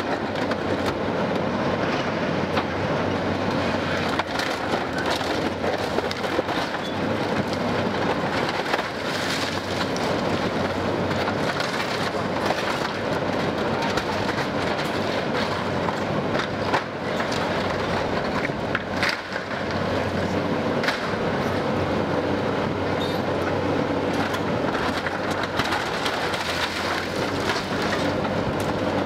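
Caterpillar 320C hydraulic excavator's diesel engine running steadily under load while its bucket tears and crunches through a building's metal roof and cladding, with repeated clanks and scraping of sheet metal and falling debris.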